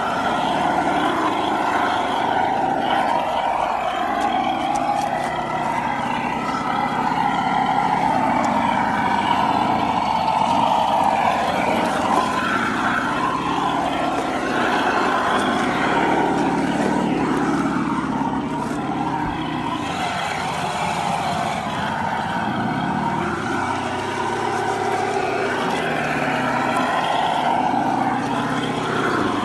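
Electric motors and geared drivetrains of radio-controlled scale crawler trucks whining as they crawl over dirt and rocks, the pitch rising and falling with the throttle, several lines of pitch at once.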